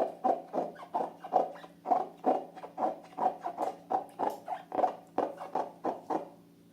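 Rubber balloons squeaking as they are rubbed and squeezed in the hands, in a quick run of short squeaks about three a second, stopping a little after six seconds.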